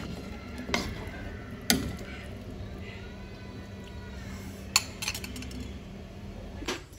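Ladle clinking against a metal wok of simmering chicken soup, three sharp knocks over a steady low hum and hiss from the stove and the simmering broth.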